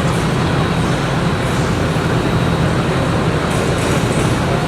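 A heavy vehicle's engine running steadily, a loud low rumble over street noise.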